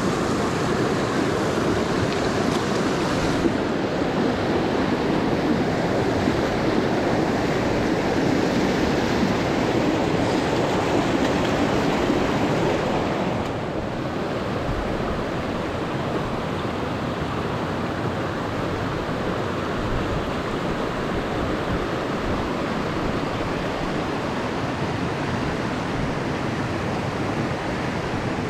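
Steady rushing of a mountain stream's water, which drops a little in level about halfway through.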